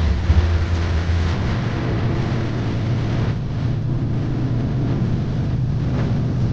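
Steady low engine hum with a rush of fan noise, heard from inside a vehicle running its air conditioning. About a second in, the deepest part of the hum drops away and it settles slightly higher.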